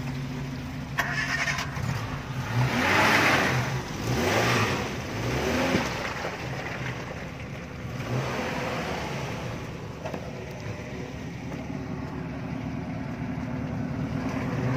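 Suzuki off-road vehicle's engine running close by, revving up a few times in the first half, then running more steadily at low speed.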